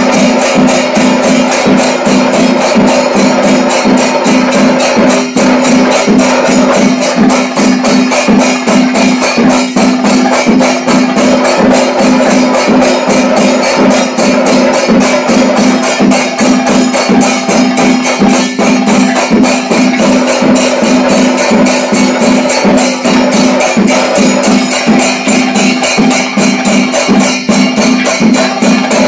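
Loud rhythmic percussion music: rapid, even strokes over a steady drone, unbroken throughout.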